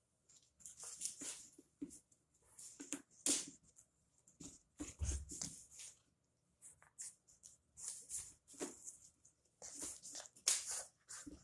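Irregular soft shuffles, brushes and a few light thuds of a child in socks moving about on a hardwood floor. The heaviest thud comes about five seconds in.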